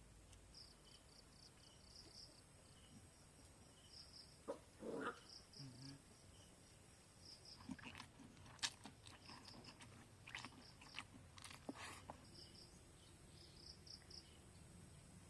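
Faint rural background with insects chirping in short repeated pulses, broken by a brief louder sound about five seconds in and a handful of sharp clicks and knocks in the middle stretch.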